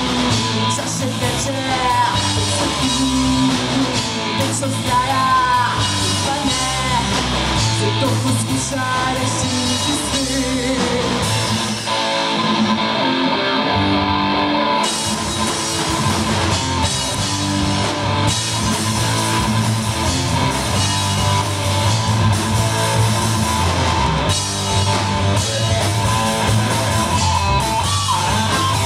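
Rock band playing live: electric guitar and bass guitar with a woman singing and drums behind. About halfway through, the cymbals stop for a few seconds, then come back in.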